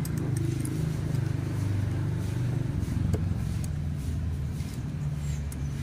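A motor vehicle's engine running steadily with a low hum, with a few light clicks over it.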